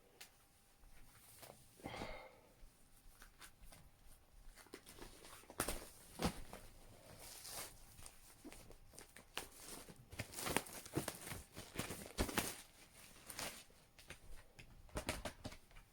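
Faint rustling, crinkling and tearing of a vinyl record box set's plastic wrap and cardboard packaging as it is handled and opened, with scattered small clicks and taps, busiest in the middle stretch.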